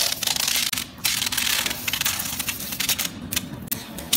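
Vinyl wrap film crackling and scraping as it is worked onto a boat hull with a plastic squeegee, in a series of short rough strokes.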